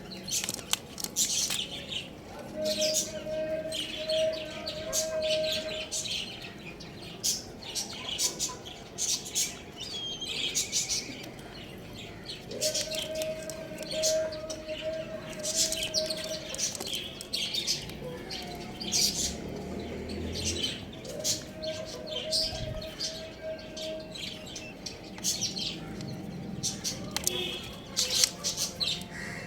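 Young chickens chirping, with many short, high, rapid chirps throughout. A long, steady, lower tone sounds three times in the background.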